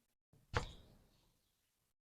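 A single short knock about half a second in, sharp at its start and dying away quickly, amid near silence.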